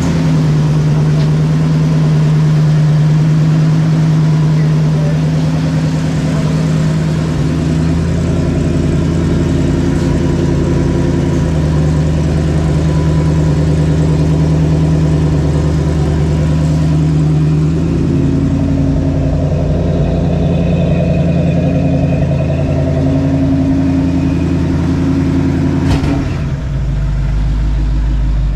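A car's V8 engine runs steadily at idle, most likely the 1968 Mustang's 289 V8 after its alternator swap. It carries a low, even drone with slight shifts in tone, and a single sharp click comes near the end.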